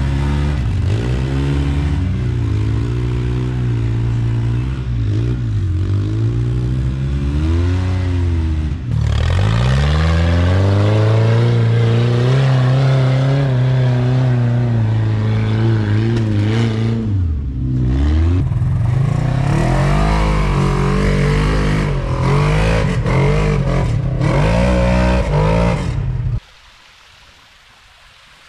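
Side-by-side UTV engine revving hard up and down as it climbs a steep dirt hill. The revs drop sharply twice and build again. Near the end the engine sound cuts off abruptly, leaving only faint background.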